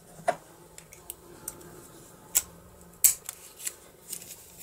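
A key pushed into a freshly reassembled DOM IX profile lock cylinder with gear cam and turned to test it. A handful of sharp metallic clicks with light scraping, the loudest about two and three seconds in.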